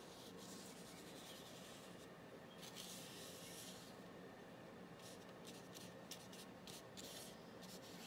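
Faint brushing of a paintbrush on paper: two longer swishing strokes, then a run of short quick strokes in the second half.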